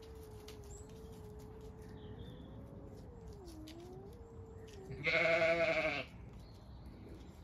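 Two male cats in a standoff, caterwauling: a long, low yowl that wavers up and down, then a much louder, quavering wail about five seconds in that lasts about a second.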